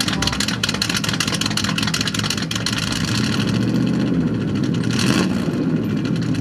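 A Buick's straight-piped exhaust, heard close at the tailpipe, with the engine running just after being started and rising briefly about four to five seconds in.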